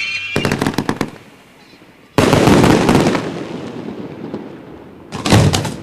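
Fireworks: a shell's whistle cuts off at the start, followed by a quick string of sharp cracks. About two seconds in, one loud boom rings out and echoes away over a few seconds, and near the end another quick cluster of sharp cracks.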